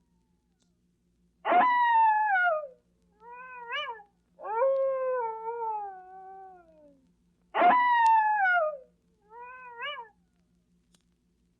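Coyote howls and yelps from a vintage sound-effects recording. Three falling howls, the middle one the longest, alternate with two short rising yelps.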